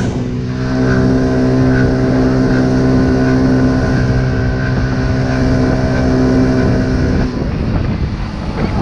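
Small scooter engine running at a steady low cruising speed, heard from the rider's seat as an even drone; about seven seconds in the throttle is closed and the drone falls away.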